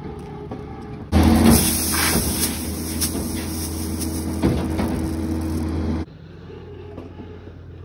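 An engine running steadily with a loud hiss over it. It cuts in suddenly about a second in and stops suddenly about six seconds in. A fainter engine drone runs before and after.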